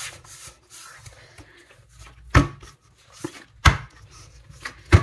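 Stiff wheat-flour dough being kneaded by hand, with soft rubbing and a few irregular sharp knocks as it is pressed and turned against the work surface.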